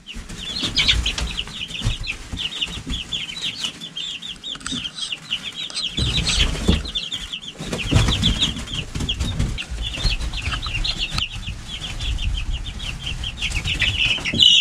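A brood of young chicks peeping nonstop, many short high cheeps in quick succession, with wings flapping now and then.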